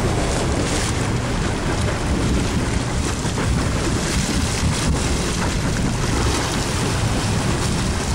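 Wind buffeting the microphone over water rushing and slapping along the side of a fishing boat, with a steady low rumble underneath.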